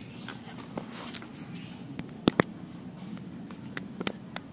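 Scattered sharp metal clicks and clinks of scooter CVT parts and small tools being handled, the two loudest close together about two seconds in, over a low steady hum.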